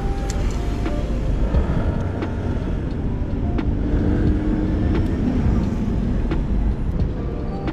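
City street ambience: a steady rumble of road traffic, with sharp clicks roughly every second and a faint engine tone passing about four seconds in.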